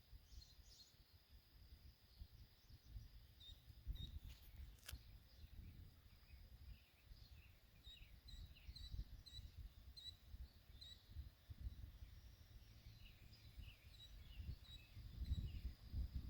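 Faint outdoor ambience: small birds chirping in short repeated notes over a steady high insect drone, with a low rumble of wind on the microphone.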